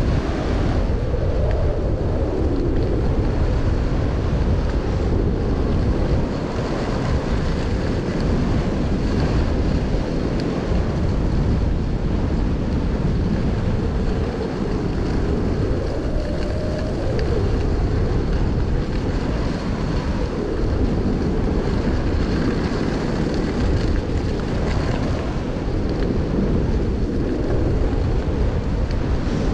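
Wind buffeting the microphone: a loud, steady, rumbling rush with no breaks.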